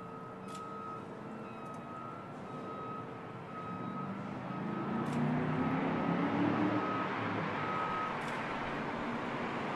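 Chevrolet Camaro Z28's engine running, rising in pitch and getting louder about halfway through as road noise builds, with a repeating high beep about one and a half times a second that stops near the end.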